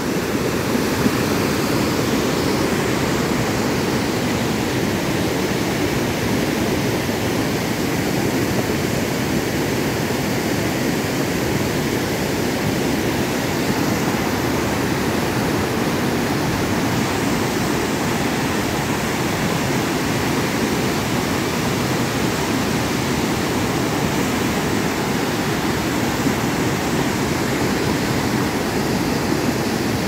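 Fast-flowing mountain river and waterfall rushing steadily: a constant, even wash of white water over rocks.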